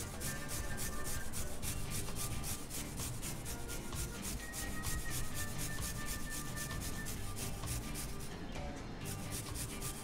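Bristles of a flat paintbrush scrubbing back and forth across a keyboard PCB: a rhythmic scratchy rasp, several strokes a second.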